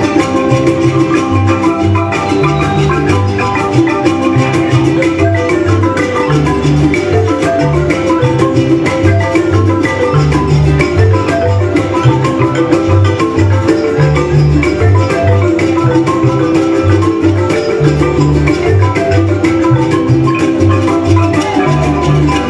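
Mexican orquesta típica playing a lively piece, the marimba prominent with quick struck notes over a line of low bass notes.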